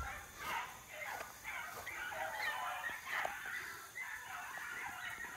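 A pack of beagles baying on a rabbit's scent trail: many short, overlapping yelps and howls, the hounds giving tongue as they run the track.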